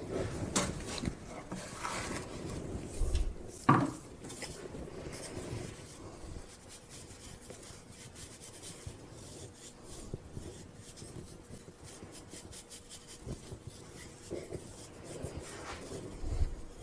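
A wooden proofing basket knocking on a wooden peel as a sourdough boule is turned out, with one sharper knock about four seconds in. Then the bristles of a pastry brush sweep loose flour off the dough and the wooden peel in many quick, short, scratchy strokes.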